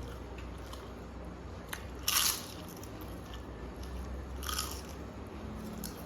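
Two loud crunches about two and a half seconds apart, with quieter chewing between: crisp papad being bitten close to the microphone.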